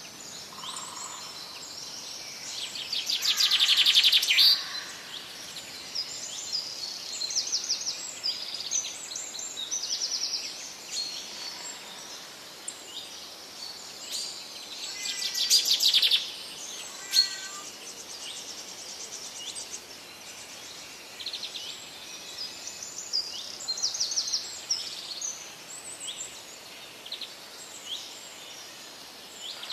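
Many small birds chirping and trilling, with two louder rapid trills about four seconds in and again about fifteen seconds in, over a steady background hiss.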